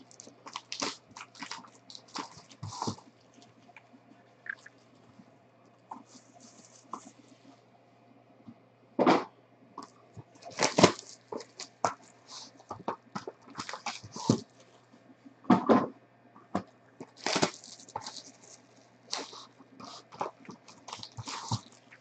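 Cardboard trading-card boxes and their plastic wrapping being handled: irregular bursts of crinkling and rustling with small knocks, loudest about 9, 11, 15 and 17 seconds in.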